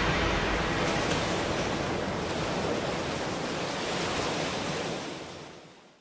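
Rushing water as a steady hiss, fading out near the end.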